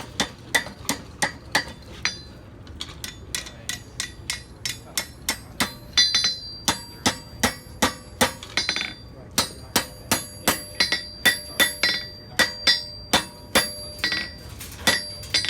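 Blacksmith's hand hammer striking metal on an anvil in a steady run of blows, about three a second, each with a metallic ring, pausing briefly about two seconds in.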